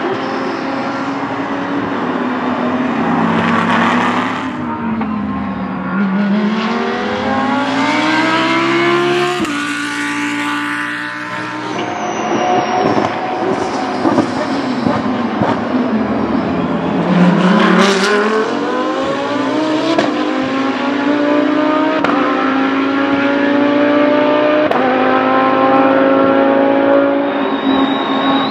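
A pack of GT3 race cars, among them Lamborghini Huracán GT3 EVO2s with V10 engines, passes close by one after another. Their engine notes drop as they brake for the corner, then climb in steps through the gears as they accelerate out, with several cars' notes overlapping.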